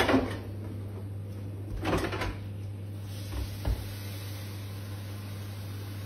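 Kitchen knocks and clunks: a sharp knock at the start, a short clatter about two seconds in and two light knocks soon after, over a steady low electrical hum.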